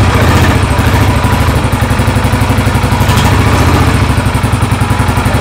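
Royal Enfield 500cc single-cylinder motorcycle engine idling loudly just after being started, with an even pulsing beat.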